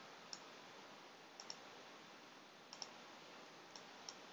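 Faint computer mouse button clicks, about seven in all, twice as a quick double click, over a low steady hiss.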